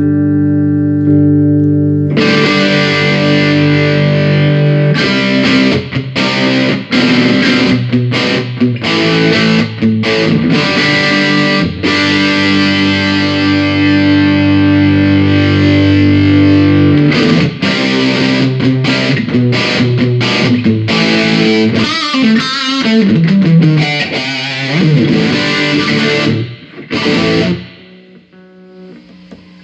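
Electric guitar played through a Fender Ultimate Chorus 2x12 combo amp with an overdriven tone: a chord held for a couple of seconds, then busy playing with short stops and some bends, dying away near the end.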